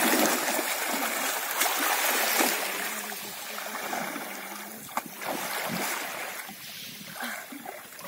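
Water splashing as a person wades fast through shallow sea water, loudest in the first three seconds, then the quieter sloshing of swimming strokes.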